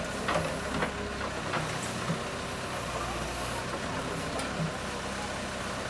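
JCB 3CX backhoe loader's diesel engine running steadily, with a few short knocks and clicks over it.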